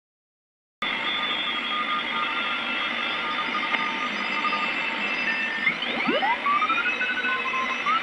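Homemade shortwave receiver's speaker giving hiss and many Morse code (CW) signals at once from contest stations: steady beeping tones at several pitches, some keyed on and off. About six seconds in, the tones glide upward in pitch as the tuning knob is turned.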